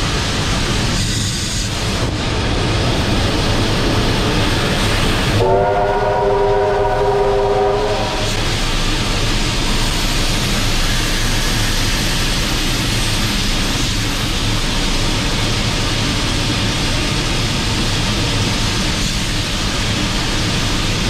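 Steam locomotive 3801 running slowly, a steady rumble and hiss from the cab. About five seconds in, a train whistle sounds a chord of several tones for about two and a half seconds.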